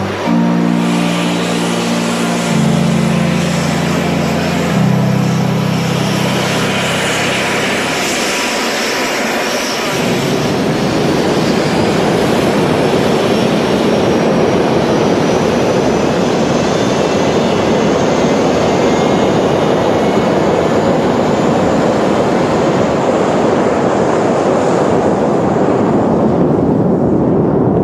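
Background music with held chords for about the first ten seconds, then the A-10 Thunderbolt II's twin General Electric TF34 turbofan engines running loud and steady, with a thin high whine that slowly rises in pitch as the jets power up for takeoff.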